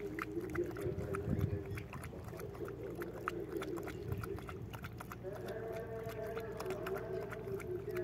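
Dog lapping water from a plastic bucket: a quick, steady run of wet clicks. A steady low hum runs underneath, and a higher steady tone joins about five seconds in.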